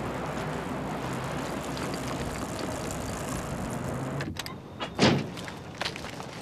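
City street traffic, cars running by in a steady wash of noise with a low engine hum. About four seconds in it drops away, and a short, loud burst of noise follows, then a light click a moment later.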